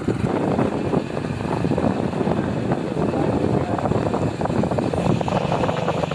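Steady running noise of a vehicle carrying the camera along a road: a dense, unbroken rumble with no breaks or changes.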